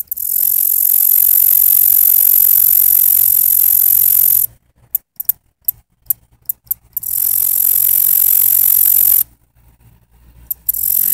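Katydid stridulating. A loud, high-pitched continuous buzz lasts about four and a half seconds, then breaks into a run of separate sharp ticks. A second buzz of about two seconds follows, then a pause with a few ticks before the buzz starts again near the end.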